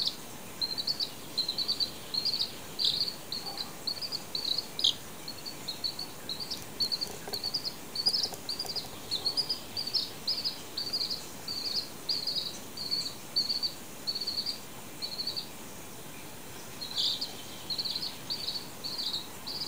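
A chick peeping over and over in short, high chirps, about two a second, with a short pause near the end before it starts again.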